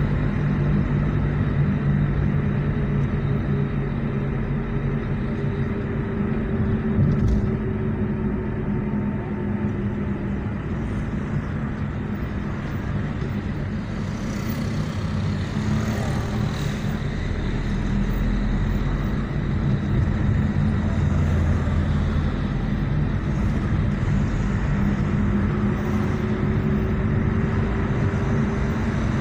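A car's engine and tyre and road noise, heard from inside the cabin while driving. The engine hum weakens in the middle and comes back near the end, its pitch rising.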